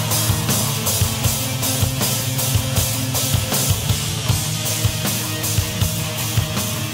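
Rock band playing live, loud and driving: a drum kit with regular cymbal strokes over a dense full-band backing of guitars and bass.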